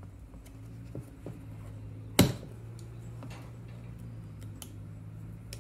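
Small clicks and taps from handling a plastic primer-bulb carburetor plate while pressing double-sided tape onto it, with one sharp, loud click about two seconds in. A steady low hum runs underneath.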